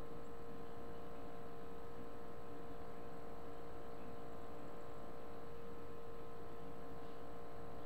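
Steady electrical hum with several fixed tones over a faint hiss, unchanging throughout: the background noise of a computer recording with no narration.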